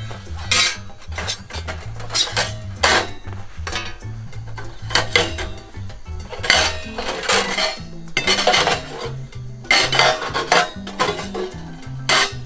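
Thin stainless-steel stove parts (chimney pipe sections and plates) being lifted out of a pellet stove's body and set down, clanking and clinking against the steel repeatedly, over background music.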